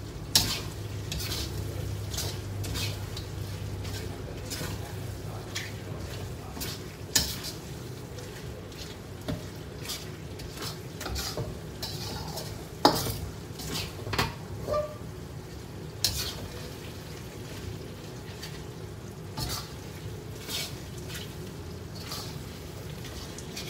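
Spatula scraping and knocking against a metal wok at irregular intervals while stirring sliced lung in thick red-chilli sambal, over a low steady sizzle of frying. The sharpest knocks come about half a second, seven seconds and thirteen seconds in.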